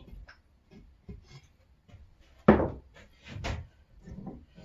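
A few knocks and clunks from an old bench vise's sliding jaw being worked in and out, the loudest about two and a half seconds in, followed by two quicker ones.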